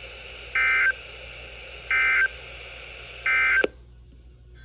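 NOAA Weather Radio SAME digital data bursts: three identical short buzzy screeches about a second and a half apart, over steady radio hiss. Coming right after the test message, they are the end-of-message code. The hiss drops away abruptly just after the third burst.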